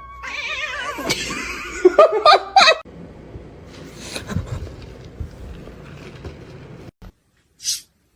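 A person laughing for the first few seconds, then quieter background noise, broken off by an abrupt cut, and a short high hiss near the end.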